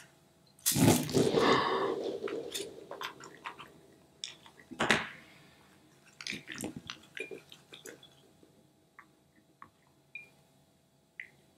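Scissors snip into a water-bead stress ball, and less than a second in a loud rush of gel water beads spills out into a bowl. A shorter burst follows a few seconds later, then scattered clicks and squishes as the beads settle and the wet rubber shell is handled.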